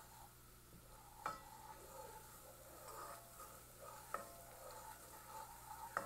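Wooden spoon stirring a butter and rice-flour roux in a pan, with a faint sizzle. The spoon knocks lightly against the pan three times.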